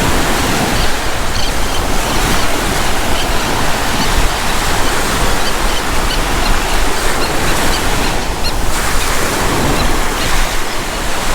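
Surf breaking and washing up the beach, mixed with wind on the microphone; a steady, loud rush of noise.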